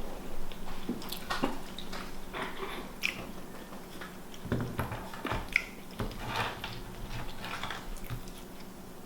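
Close-miked chewing and soft mouth sounds of someone eating, with scattered small clicks and taps.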